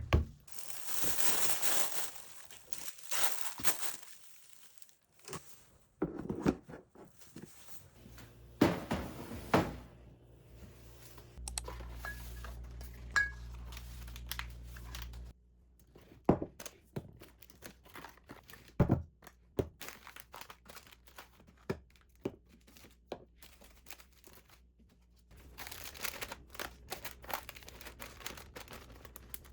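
Things being handled and sorted by hand: wrappings crinkling and rustling, with scattered knocks and thunks as objects are picked up and set down. A low steady hum runs for a few seconds midway.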